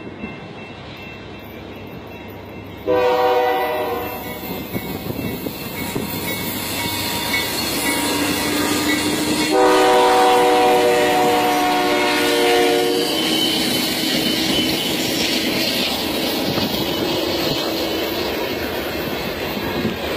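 BNSF diesel freight locomotives passing close, sounding the horn: a short blast about three seconds in and a longer one of about three seconds near ten seconds in, over the growing rumble of the engines. After that comes the steady rumble and clatter of hopper cars rolling by.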